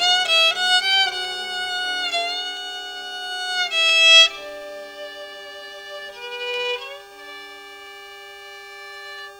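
Solo violin playing slow, sustained notes, swelling to a loud held note that stops about four seconds in, then softer notes settling into a long held note. A steady faint tone sits underneath throughout.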